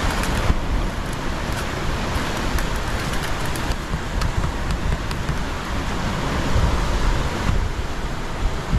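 Steady wash of sea surf against a rocky shore, with wind buffeting the microphone and a few light clicks.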